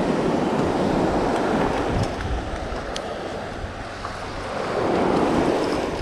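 Sea surf washing onto a beach, swelling loud, easing off in the middle and building again about five seconds in, with wind buffeting the microphone.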